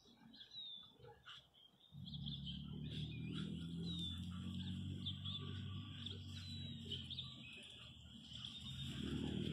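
Small birds chirping with short, quick calls throughout. About two seconds in, a low, steady engine hum starts up. It eases slightly, then rises again near the end.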